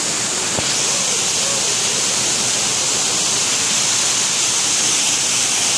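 Banyumala waterfall's water pouring down in a steady, loud rush of white noise.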